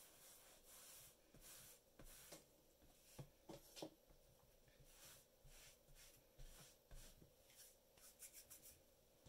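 Faint rubbing and scraping of hands handling clay and a tool on a work mat, in short repeated strokes, with a few light taps about three and a half seconds in and a quick run of strokes near the end.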